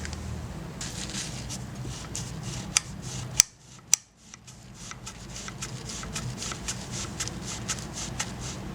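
Hand pruners (pruning shears) being worked: a few sharp clicks, a brief drop to near silence, then a fast run of small clicks as the blades open and close, over a steady low hum.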